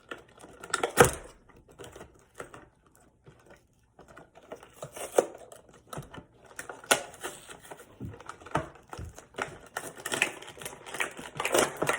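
Irregular clicks, knocks and rustling of a toy's packaging being worked open by hand, with a sharp knock about a second in and busier handling near the end.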